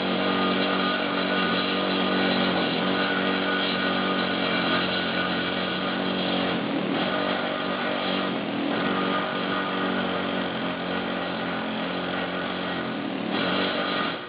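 A peening hammer working a freshly laid flux-cored weld bead on a steel forge die, in a steady, rapid, unbroken run of hammering that stops abruptly at the very end.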